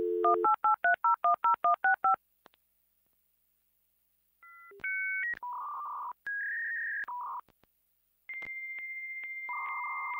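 Dial-up modem connecting over a phone line. A dial tone ends about half a second in, followed by a quick run of touch-tone dialing beeps. After a pause of about two seconds come the modem handshake's beeping tones and hissing screech, with a steady high tone setting in near the end.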